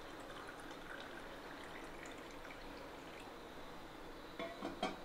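Chilled water poured in a stream into a glass tumbler, a steady soft splashing as the glass fills. A few light clicks come near the end.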